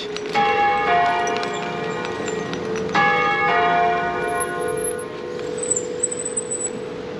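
Church bells ringing: two bells of different pitch struck one after the other, higher then lower, twice about two and a half seconds apart, each stroke ringing on.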